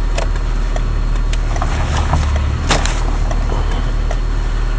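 Peugeot 206 engine running steadily, heard from inside the cabin as a low rumble that swells briefly about two seconds in, with a few sharp clicks over it.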